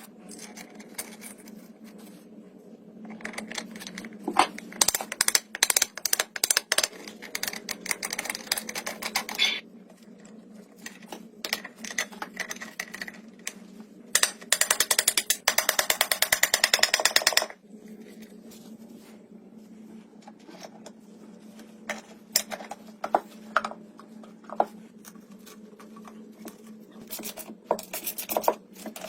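Hand work in a workshop: scattered taps, clicks and scrapes over a steady low hum, with a few seconds of fast, regular rubbing or scraping strokes a little past the middle.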